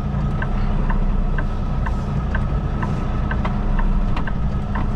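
The diesel engine of a Kenworth T680 semi truck running low and steady, heard from inside the cab while the rig backs slowly into a dock. Through it comes a light, even click about twice a second.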